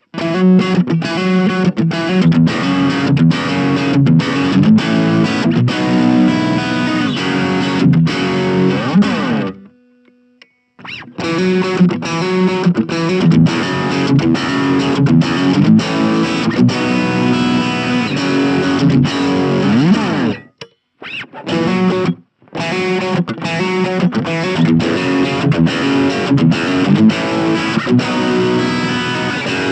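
Fender Elite Telecaster with its pickup selector in the middle position (neck and bridge pickups together), played through a Blackstar Fly 3 mini amp's overdrive channel: distorted electric guitar riffs and chords. The playing stops for about a second a third of the way in, and twice more briefly later on.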